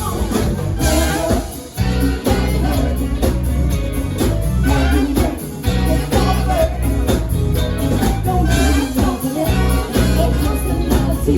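Pop song playing, with a strong bass line, a steady drum beat and singing; the loudness dips briefly just under two seconds in.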